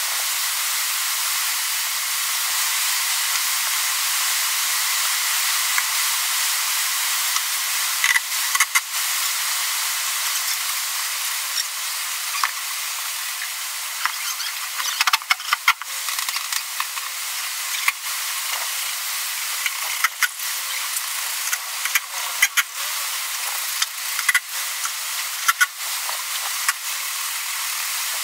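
Steady hiss with short, sharp clicks and knocks scattered through it.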